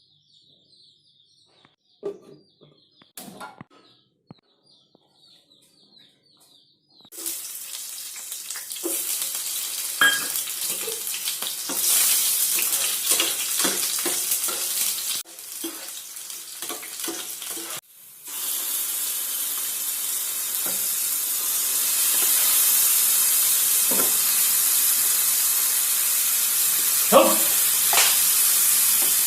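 Food sizzling as it fries in a hot pan, starting about seven seconds in, with scattered clicks and scrapes of a utensil stirring. The sizzle drops away briefly near the middle, then comes back louder and steady.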